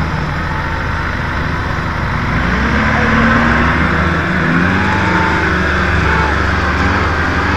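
Off-road 4x4 engines running, with a steady low rumble and a note that rises and falls a little.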